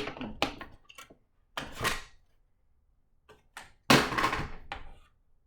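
A handful of short knocks and clicks with two brief rustling scrapes, the louder one about four seconds in: puppets and props being handled.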